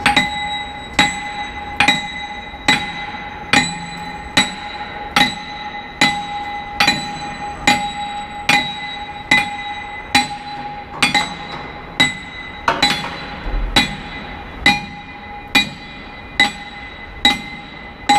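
Sledgehammer blows on a steel shrink link (dog-bone link) at the rim joint of a 60-ton engine flywheel, hammering the heated link to slide it into place. The blows come steadily, a little more than one a second, each a sharp clang with a bell-like ring that carries on between strikes.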